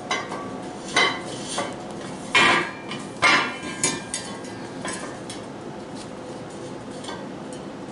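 Pieces of square steel tubing clanking against each other and the concrete floor as they are handled and fitted together. There are a few sharp metal clanks, the loudest about two and a half and three and a half seconds in, then lighter knocks.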